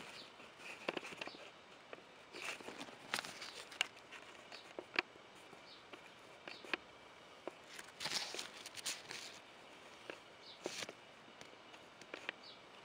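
Rustling and scattered light clicks from the handling of a Lowepro Classified 200 AW camera bag and its padded interior dividers, with a longer rustle about eight seconds in.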